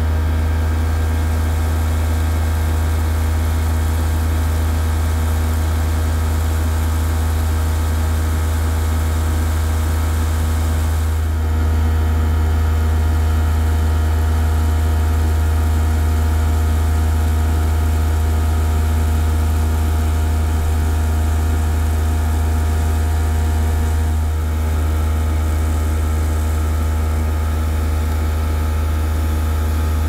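Klein toy Hoover Alpina cylinder vacuum cleaner's small motor running steadily with a loud hum and whine while the floor nozzle sucks up polystyrene foam balls. The level rises slightly about twelve seconds in and eases back a little later on.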